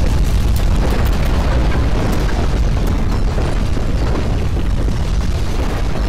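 Deep, continuous earthquake rumble with faint crackles on top, as the ground shakes at strong intensity.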